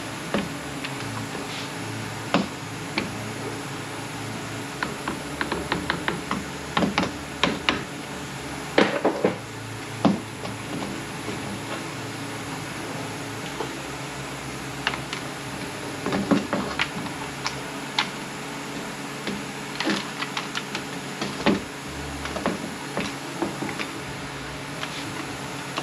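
Irregular metallic clinks and knocks of hand tools and parts as a drum from an FW6AEL six-speed automatic transmission is unbolted and taken apart on the bench, with the loudest cluster about nine seconds in. A steady low hum sits underneath.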